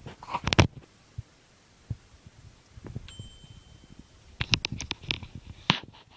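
Microwave oven beeping once, briefly and high-pitched, about three seconds in. Clicks and knocks come just before, about half a second in, and a quick run of them follows from about four and a half seconds.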